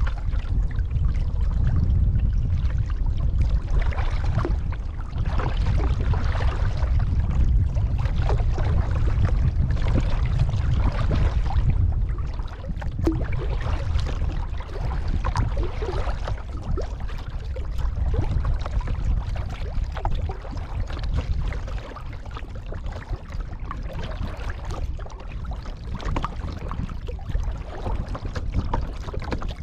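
Kayak paddle strokes: the blades dip and splash in the water again and again, with water running off them. A low wind rumble on the microphone is heavier for the first twelve seconds or so, then eases.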